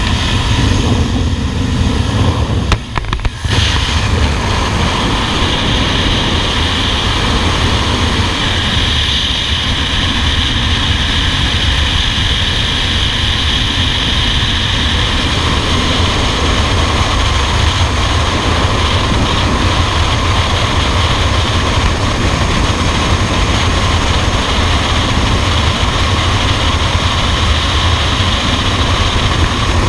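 Freefall wind rushing over a skydiving camera's microphone: a loud, steady rumble and hiss. It opens at the jump plane's open door, with a brief dip in the noise about three seconds in as the skydivers leave the aircraft.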